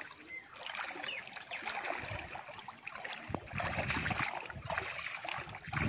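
Pond water sloshing and splashing around a person's legs as he wades thigh-deep, in uneven surges with each stride, growing heavier from about two seconds in.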